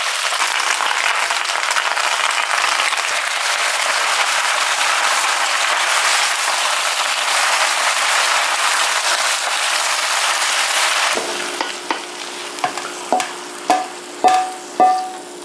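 Bok choy sizzling loudly as it is stir-fried in a hot wok. The sizzle cuts off about eleven seconds in, and then come about five knocks with a short ring as the greens are tipped out of the wok onto a plate.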